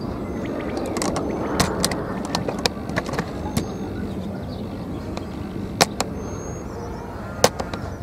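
Outdoor ambience: a steady low rumble with scattered sharp clicks and pops, the two loudest about six and seven and a half seconds in, and a few short high chirps.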